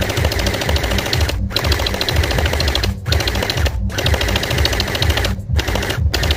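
M4-style gel blaster firing gel beads on full auto in rapid bursts, a fast mechanical rattle broken by several short pauses.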